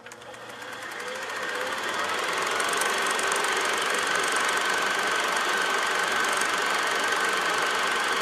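A steady, engine-like running noise that fades in over the first two seconds and then holds level, with a faint high whine in it.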